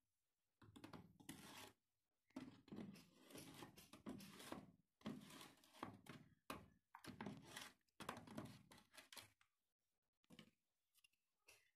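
Faint, irregular scraping and tapping of a hammer head worked inside a window cut into a plastic drain pipe, prying at the cut-out section; the strokes stop about two seconds before the end.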